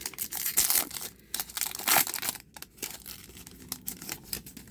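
Crinkling plastic and the rustle of trading cards being handled, in quick irregular bursts, loudest in the first two seconds and fainter after.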